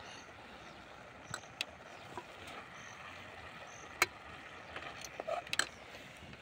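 Metal spoon clinking against an aluminium cooking pot while stirring cooked cabbage: a few sharp clicks, the loudest about four seconds in, over a steady low hiss.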